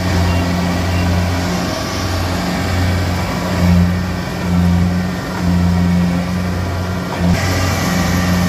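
Combine harvester's engine running under heavy load, its note swelling and dipping about once a second as the machine struggles to turn around while bogged in mud.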